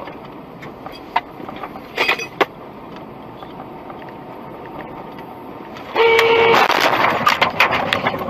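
Car horn giving one short blast about six seconds in, over steady road noise with a few sharp clicks. The horn runs straight into a couple of seconds of loud, noisy clatter.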